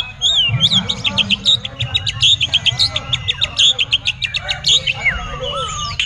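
White-rumped shama in full song: a fast run of short, sharp high notes, then a few slurred, sweeping whistles near the end.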